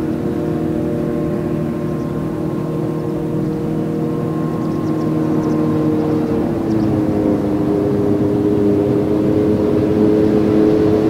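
Claas Jaguar 850 forage harvester running steadily while chopping maize, a continuous engine hum with several held tones. A little past halfway the pitch drops slightly, then creeps back up as the sound grows a bit louder toward the end.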